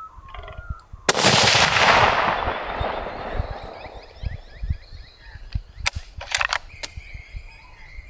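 A single .30-06 hunting rifle shot about a second in, its report echoing and fading away over about three seconds. Birds call afterwards, and a few sharp clicks come near the end.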